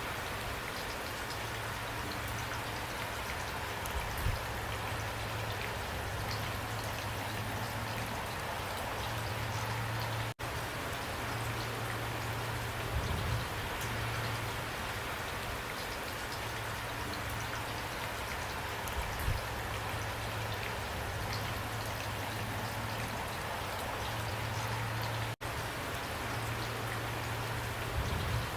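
Steady rain falling, an even hiss of drops with a few brief louder moments. The sound cuts out for an instant twice, about ten and twenty-five seconds in.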